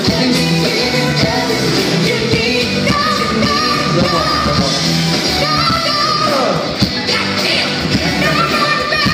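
Pop song from a backing track played over a PA with live singing over it, heard during a sound check.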